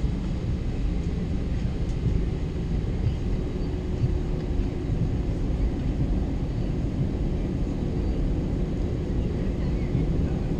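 Cabin noise inside an Airbus A321 taxiing: a steady low rumble of the jet engines and cabin air. A faint steady hum joins about three seconds in.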